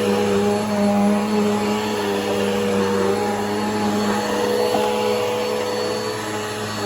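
Bissell PowerForce Helix upright vacuum cleaner running steadily, its motor hum wavering slightly in pitch as it works.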